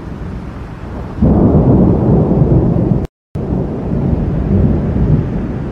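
Thunder from a thunderstorm: a low rumble, with a loud roll breaking in about a second in and slowly dying away. The sound drops out completely for a split second about three seconds in.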